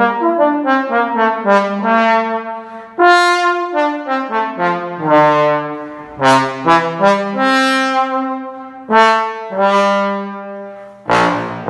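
King 3B Silver Sonic tenor trombone played solo. It opens with a quick run of short tongued notes, moves into a phrase of longer held notes, and ends on a loud, accented note near the end.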